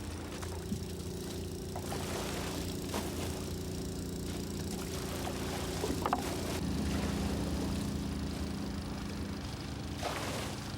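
An engine running steadily at an even speed, with a few light knocks over it.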